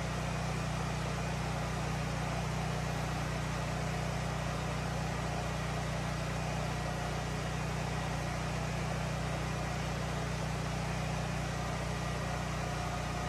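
Steady mechanical drone with a strong low hum.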